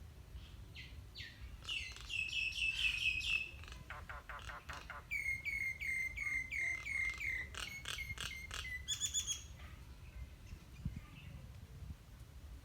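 Songbirds singing: bursts of quick repeated chirps, with a run of about ten short down-slurred notes in the middle. The song thins out near the end.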